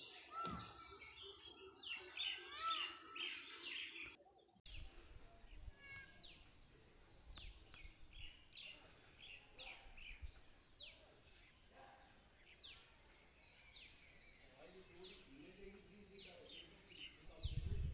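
Birds chirping and chattering. After an abrupt cut about four and a half seconds in, one bird repeats a short, falling, high whistled note roughly once a second, faint against a light hiss. A low rumble comes in near the end.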